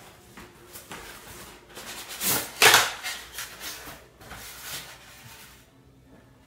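Polystyrene foam packing block being worked loose and pulled out of a cardboard TV box: foam rubbing and scraping against cardboard, loudest a little over two seconds in, then trailing off.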